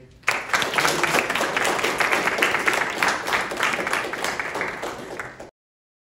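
Audience applauding: dense clapping that starts suddenly just after the start and cuts off abruptly near the end.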